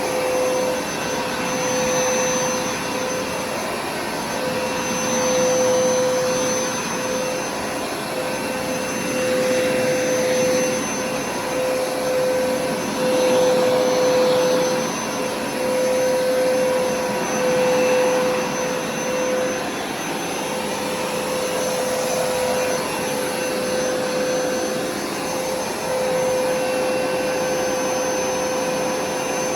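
Hoover carpet-cleaning machine running with a steady motor whine over a rush of suction. It grows louder and quieter every few seconds.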